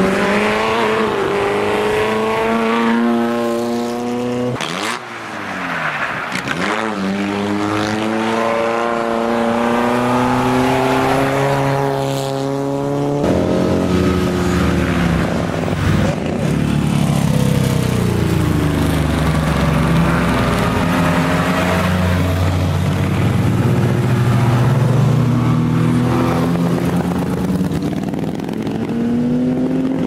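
Vintage racing car engines accelerating hard one after another. A rising engine note breaks off briefly about four and a half seconds in, then climbs again. From about halfway a deeper, louder engine takes over, its pitch rising and falling as it pulls away.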